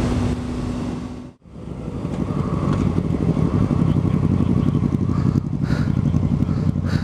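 Motorcycle engine running, heard from the rider's helmet camera. The sound cuts out for a moment about a second and a half in. Then the engine runs at low revs with an even pulsing as the bike slows to a stop at a red light.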